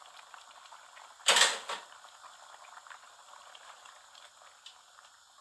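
Curry bubbling at a simmer in an open pan, a steady faint crackling. About a second in there is one sharp clatter, and a smaller one follows just after.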